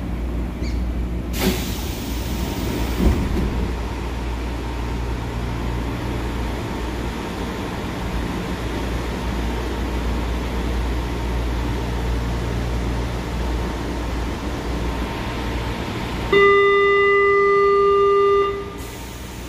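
São Paulo Metro train standing at a platform with a steady low hum from the car, and a hiss about a second and a half in as the doors open. Near the end, a loud steady warning tone sounds for about two seconds: the door-closing alert.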